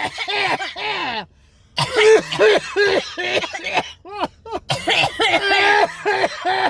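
People coughing hard and deliberately, over and over, into face masks inside a closed car: forced coughs to bring up saliva for an oral COVID-19 test. The coughs come in a quick series, with a short break about a second in.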